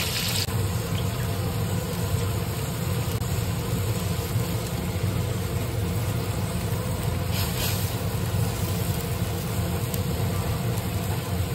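A wok of tofu and hibiscus flowers bubbling on the stove, over a steady low kitchen rumble. A hiss dies away just after the start, and another short hiss comes about two-thirds of the way through.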